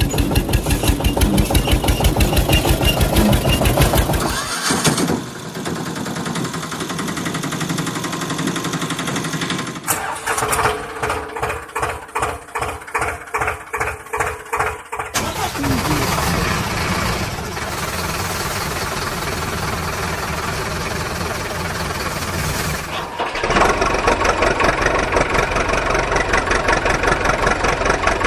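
Motor-vehicle engine sound effects cut together, with several abrupt changes between clips of running and idling. In one stretch the engine pulses slowly and evenly, about twice a second.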